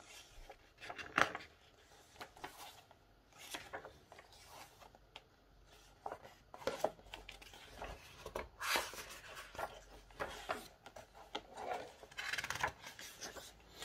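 Pages of a small book being turned and pressed flat by hand: a string of short, irregular paper rustles and rubs.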